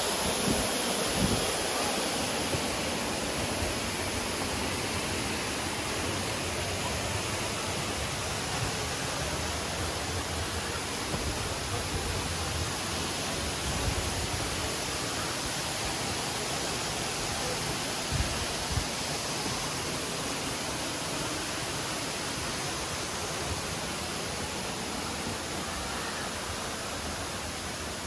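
Steady hiss of rushing water, slowly growing fainter, with a few soft low thumps.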